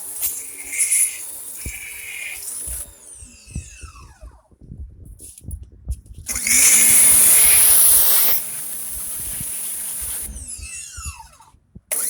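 Powermate 1800 PSI electric pressure washer running and spraying with a loud hiss. Its motor winds down with a falling whine a few seconds in, starts again about six seconds in with a loud burst of spray, then winds down once more near the end.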